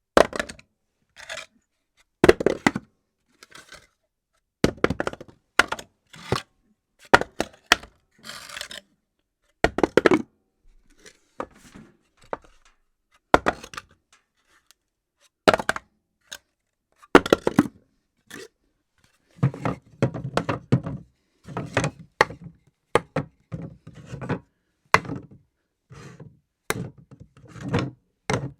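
Objects dropped onto a floor one after another, each landing with a sharp thud or clatter, often followed by a short bounce or rattle, with brief quiet gaps between the drops.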